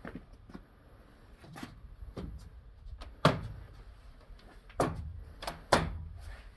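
Metal terrace louvre slats being tilted shut by hand, knocking and clacking as they swing closed. It is a series of irregular knocks, the loudest around halfway, with two more strong ones near the end.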